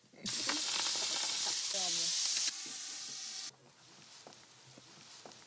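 Food frying in a hot pan: a loud, even sizzling hiss that starts suddenly, drops a little partway through and cuts off abruptly about three and a half seconds in. A short voice is heard briefly in the middle.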